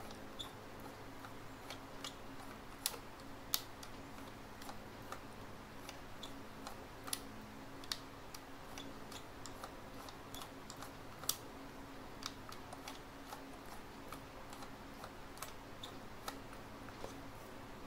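Knob on the side of a Rolleicord twin-lens reflex camera being turned by hand, giving irregular light clicks, about two a second, from its mechanism.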